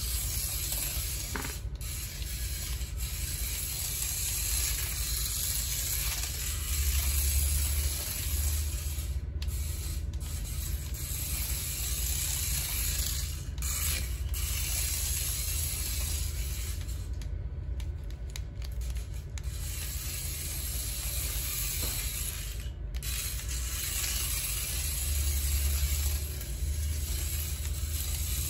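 Tiny toy RC car's electric motor and plastic gears whirring as it drives over a hard floor. The whir stops briefly several times, with a steady low rumble underneath.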